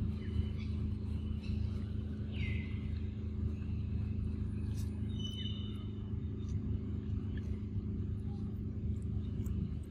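Steady low motor hum, like an engine or generator running at an even speed. A few faint bird calls over it: a quick falling note about two seconds in and short high whistles about five seconds in.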